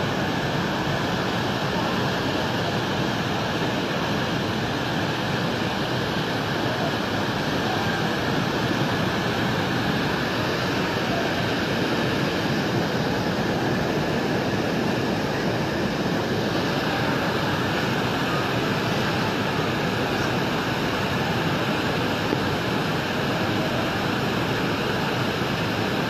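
Floodwater rushing in a flash flood: a fast, muddy torrent carrying logs and debris makes a steady, unbroken rush of water noise.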